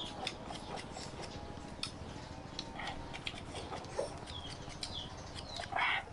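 Small birds chirping here and there, with light clicks and scrapes of a knife peeling the skin of a green mango. A short, louder sound comes a little before the end.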